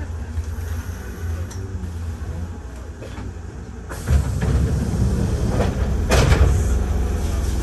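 Kintetsu train standing at a station as its sliding doors open: the noise rises suddenly about four seconds in, and a short sharp air hiss follows about two seconds later, over a steady low rumble.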